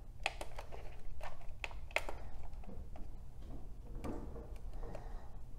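Plastic buttons on a Superman digital projection alarm clock clicking as they are pressed to set the time: a handful of short, sharp clicks at irregular intervals.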